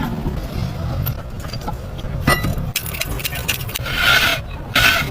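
Scraping and rubbing from hand-tool work, with a sharp knock about two seconds in and two longer scrapes near the end.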